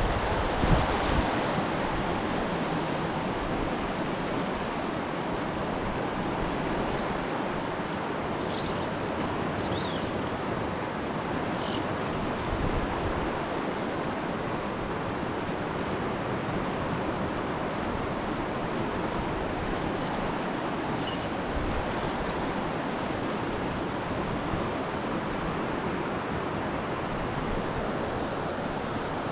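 Steady rushing of a shallow mountain stream running over rocky riffles, an even continuous hiss of moving water.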